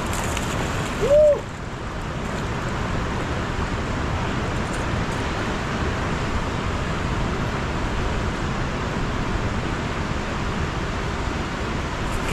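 Steady rushing of flowing river water, with one short whooping shout about a second in.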